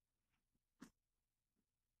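Near silence, with one faint short click about a second in.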